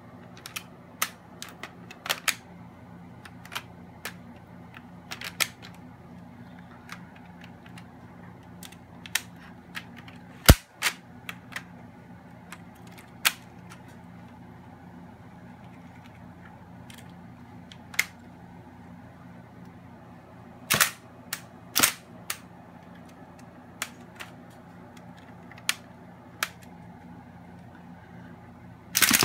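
Lego rubber-band blowback rifle firing single shots: sharp plastic clacks of the bolt cycling, spaced irregularly a second to several seconds apart, the loudest about ten seconds in. A rapid full-auto burst starts at the very end.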